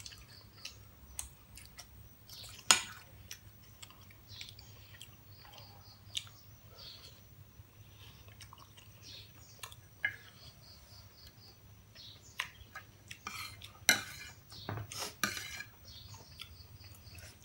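Metal spoon clinking and scraping against plates and bowls during a meal, in scattered sharp taps, the loudest about three seconds in and a few more close together near the end.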